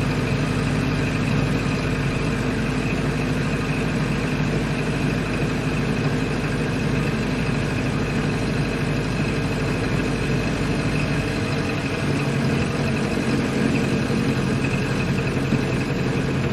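1928 Ford Model A's four-cylinder engine running steadily; about eleven seconds in its deepest rumble drops away.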